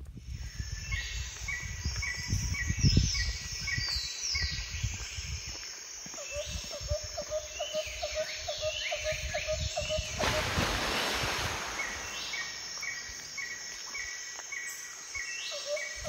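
Birds singing outdoors, repeating short phrases of quick notes and falling chirps, over an uneven low rumble of wind on the microphone. A louder rushing noise of about two seconds comes about ten seconds in.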